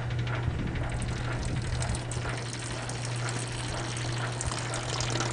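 Kenmore wringer washing machine running, its electric motor giving a steady hum while the pump draws the wash water out of the tub with a rushing, gurgling water sound that grows louder about a second in.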